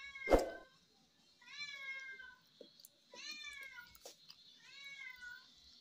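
A cat meowing over and over, about four drawn-out meows that fall slightly in pitch, roughly a second and a half apart. A single loud knock comes about a third of a second in.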